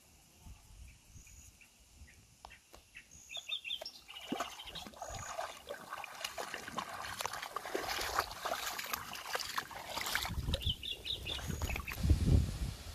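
A borzoi's legs sloshing and splashing through shallow river water as it wades, starting about four seconds in, with short high bird chirps repeating over it. A brief low rumble comes near the end.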